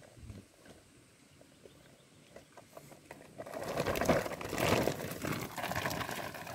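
Cassava stems knocking and rattling together and a plastic sack rustling as a bundle of cuttings is gathered up. It starts about three and a half seconds in, after a quiet stretch with a few faint clicks.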